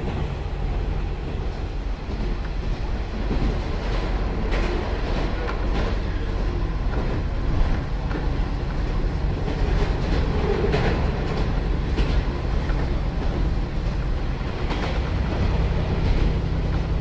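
Cabin of a KiHa 47 diesel railcar under way: the steady drone of the diesel engine and running gear, with scattered clicks and clacks from the wheels over the rails.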